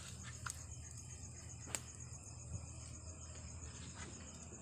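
Crickets trilling steadily in a fast, even pulse, with a couple of sharp clicks, one about half a second in and a louder one near two seconds in.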